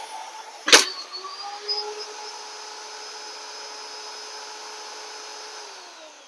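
Small electric pressure washer motor running steadily. About three-quarters of a second in there is a single sharp bang, followed by some brief clattering. Near the end the motor's pitch falls as it winds down and stops, the machine dying under the abuse.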